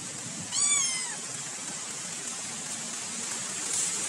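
A cat meowing once, a short high call that rises and falls, about half a second in, over a steady hiss.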